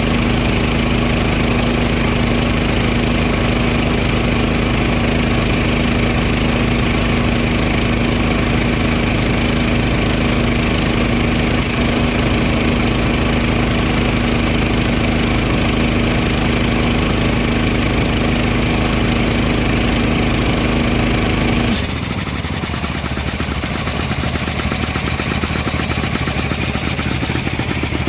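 Engine-driven air compressor running steadily. About three-quarters of the way through its sound changes abruptly, its strongest tone dropping out and the level falling a little, then slowly building again.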